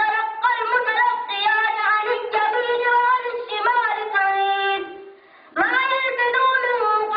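A single high voice, a child's or a woman's, singing or chanting a melodic line unaccompanied in held, drawn-out notes, with a short breath pause about five seconds in.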